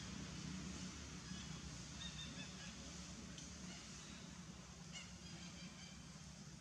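Faint, short, high-pitched animal calls, several in a row, over a low steady hum.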